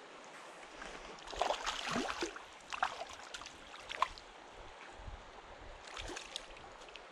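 A hooked stocked trout splashing at the surface of a shallow creek as it is played in, in a cluster of splashes between about one and two seconds in and single ones near three and four seconds, over the steady sound of the flowing water.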